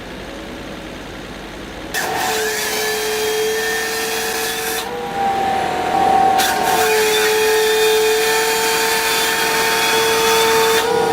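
A machine starts up abruptly about two seconds in and runs with a steady motor whine over hiss, broken twice briefly.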